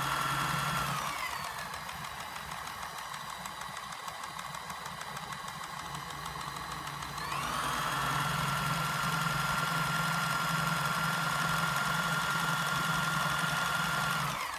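Kenmore 158 sewing machine running with its top cover off, electric motor whining and the needle-bar and shaft mechanism clattering, its freshly cleaned works running well. It slows to a lower, quieter speed about a second in, speeds back up about seven seconds in, and stops at the end.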